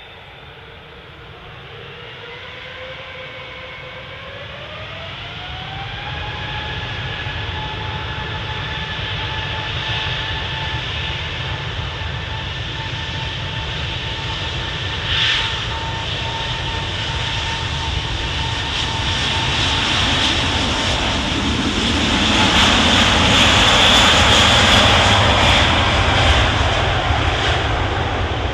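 Airbus A380's four jet engines spooling up for takeoff: a whine that rises in pitch over the first few seconds and then holds steady, under a low rumble that builds and is loudest about three-quarters of the way through before easing slightly.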